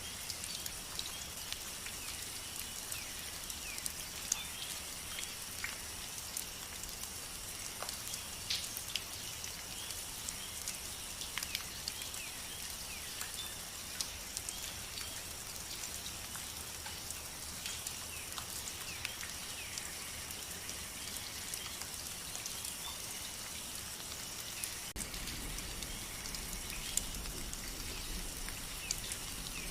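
Steady rain with many individual drops ticking and pattering on surfaces over a constant high hiss. A deeper low rumble comes in suddenly near the end.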